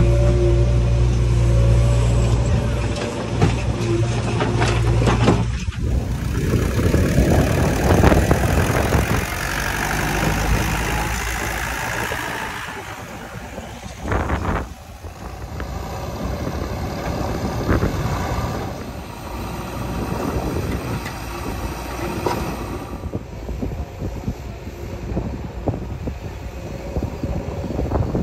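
Heavy diesel machinery running, a backhoe loader and tractors at work, with scattered clanks and knocks. A steady low engine note for the first five seconds gives way abruptly to a noisier, rattling mix of engine and metal knocks.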